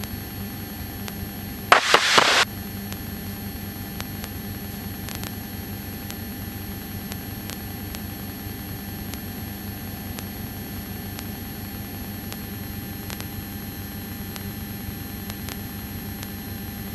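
Light aircraft's piston engine and airframe noise heard through the headset intercom: a steady drone with faint steady tones over it. A brief loud burst of noise cuts in about two seconds in.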